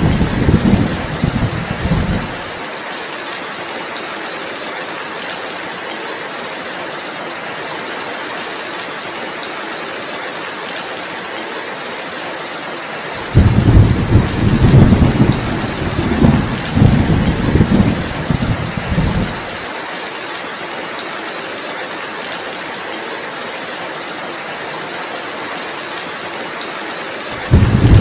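Heavy, steady rain hissing, with deep rolling thunder rumbling. The thunder comes in the first two seconds, again for about six seconds from roughly halfway, and once more just before the end.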